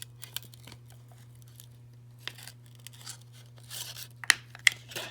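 Scraping and crackling of an iPhone X's broken back glass being pried off around the camera lens: irregular scrapes and small clicks, with two sharp snaps near the end.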